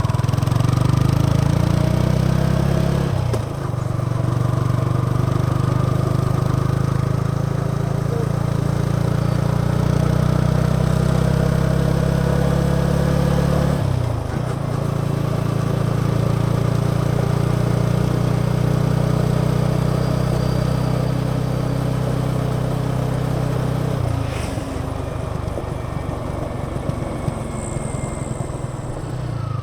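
Yamaha XSR 155's single-cylinder engine and exhaust while riding, holding a steady note that drops out briefly and picks up again about 3 and 14 seconds in. After a third break near 24 seconds the steady note is gone and the sound turns rougher and a little quieter.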